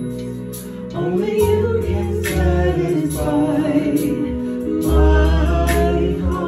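Live gospel worship song. Singers at microphones, led by a woman's voice, come in about a second in over a Yamaha Motif keyboard playing held chords and bass notes.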